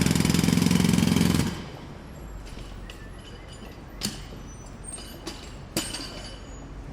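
Jackhammer hammering at close range in a fast, even rattle, then stopping about a second and a half in. A low steady background remains, with a few sharp knocks.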